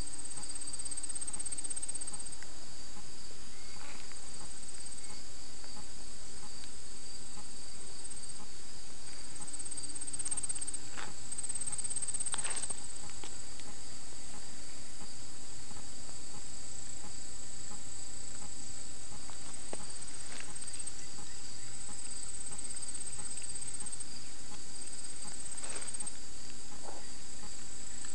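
Steady high chirring of insects in the grass, with a higher trill that comes and goes every few seconds. A few faint brief rustles are heard over it.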